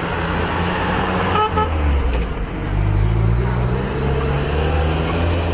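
A car engine running with a low, steady drone that shifts in pitch from about three seconds in. A short horn toot comes about a second and a half in.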